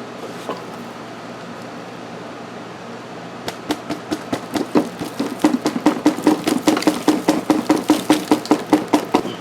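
Rapid series of hollow knocks, about four a second, starting about three and a half seconds in and growing louder, as the disassembled car air-conditioning box is handled over a steady background hum.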